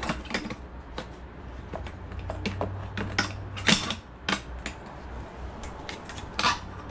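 Irregular clicks and knocks of the metal light bars of a Spider Farmer SE3000 LED grow light being handled and snapped into place, with two louder knocks, one about halfway through and one near the end.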